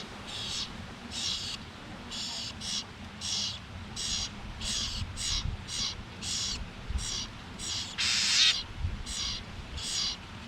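A bird calling over and over, short harsh calls about twice a second, with one louder, noisier burst about eight seconds in.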